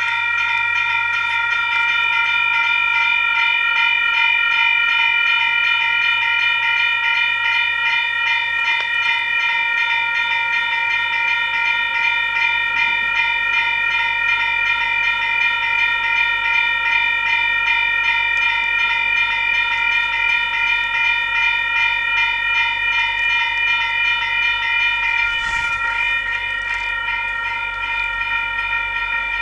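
Railroad crossing warning bell switching on suddenly and ringing steadily, with rapid, evenly repeated strikes. Near the end, a low rumble of the approaching train joins in.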